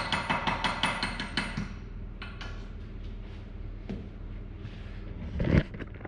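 Chipping hammer rapping slag off a fresh 7018 stick-weld bead on a worn steel bearing bore, about six quick taps a second, stopping about a second and a half in. A few light ticks follow, then one louder knock near the end as the camera is handled.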